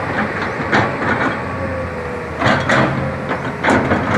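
Komatsu crawler excavator's diesel engine running steadily under work, with about four loud metallic clanks from the machine.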